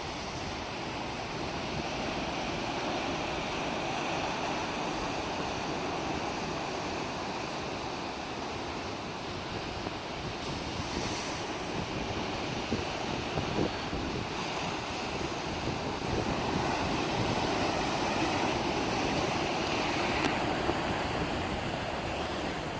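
Sea waves washing on the shore: a steady rushing that swells and eases slowly, with wind buffeting the microphone.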